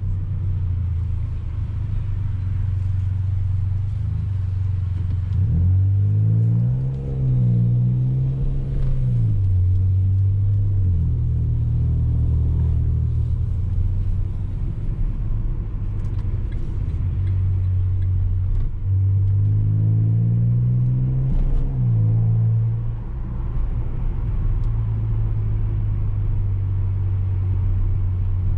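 Ford Ka 1.5 three-cylinder engine running through an aftermarket JK sport muffler that replaces the rear muffler, heard on the move with a steady low drone. Twice it revs up in a rising pull and then drops back down.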